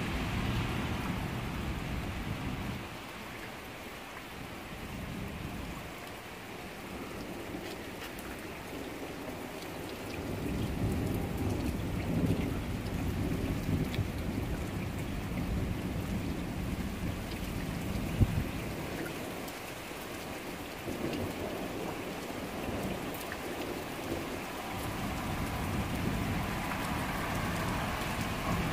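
Rain falling steadily during a thunderstorm, with low rumbles of thunder swelling and fading, and one sharp crack about eighteen seconds in.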